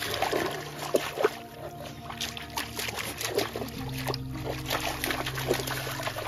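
A German Shepherd pawing and splashing in a shallow creek, with many quick irregular splashes of water. Background music with held notes plays underneath.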